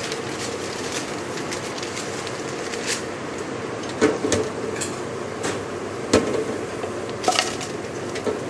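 Steady commercial-kitchen noise from the extraction hood, broken by a few sharp metallic clanks, around four, six and seven seconds in, as a wire basket is lifted out of a deep fryer.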